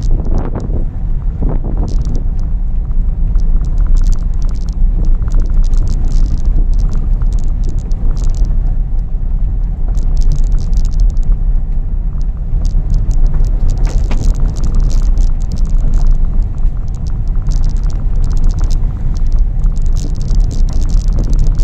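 Car driving along an unpaved dirt track, heard from inside the cabin: a steady low engine and road rumble with frequent short knocks and rattles from the uneven surface.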